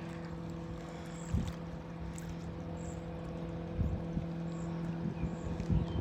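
A steady, low mechanical hum, like a motor running at constant speed, with a few soft thumps about a second and a half in and about four seconds in.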